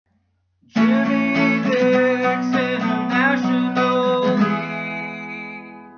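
Guitar music strumming chords, starting just under a second in; the last chord is left ringing and fades out.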